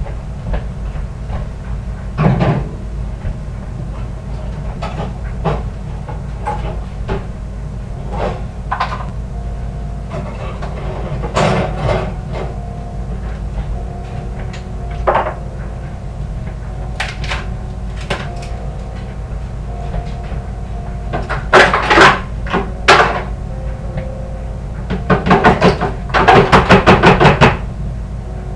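Kitchen handling sounds: scattered knocks and clatters of cupboard doors and dishware, louder in a cluster about three-quarters of the way in and ending in a quick run of rapid rattling taps near the end, over a steady low hum.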